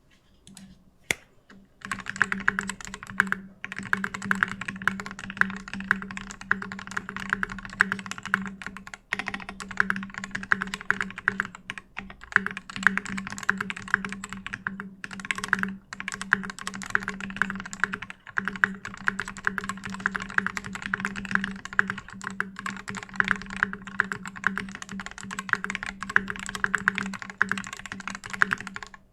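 Continuous fast typing on a custom mechanical keyboard: lubed Gateron Giant linear switches with slow springs and switch films, in a brass plate, under thick KAT-profile keycaps. The keystrokes run as a dense stream of clicks with a few brief pauses, starting about two seconds in.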